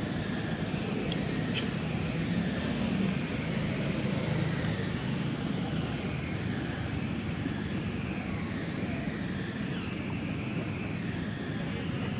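Steady outdoor background rumble, like distant traffic, with a high hiss over it and a couple of small clicks about a second in.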